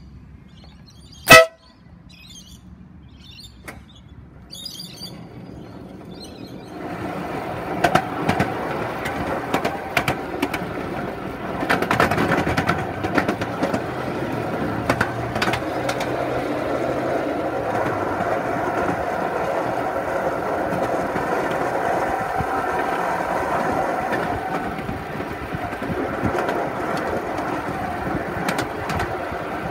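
Ride-on miniature railway train starting off about seven seconds in, then running steadily along the track: a rolling rumble with irregular clicks from the wheels on the rails, heard from on board. Before it moves, birds chirp faintly and there is one sharp, loud blip about a second in.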